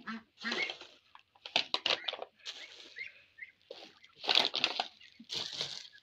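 Domestic ducks quacking in irregular bursts, loudest about four seconds in and again just before the end.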